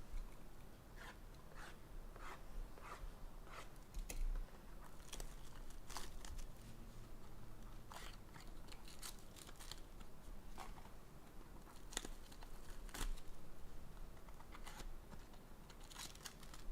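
Crinkling, tearing and clicking of a sealed trading-card box and its packs being opened by hand: plastic wrap and cardboard handled in short irregular rustles, with a few sharper snaps.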